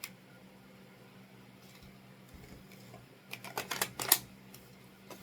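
Clicks and rattles of toy lightsaber parts being handled: a single click at the start, then a quick run of sharp clicks about three and a half seconds in, the loudest just after four seconds, and a faint click near the end.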